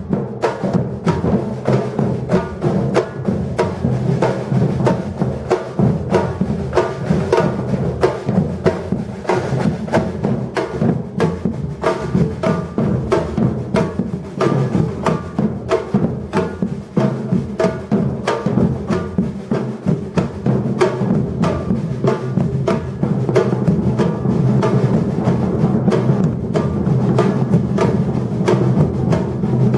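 Batucada drum ensemble playing a steady, driving rhythm, with deep bass drums under a dense run of sharper drum strokes.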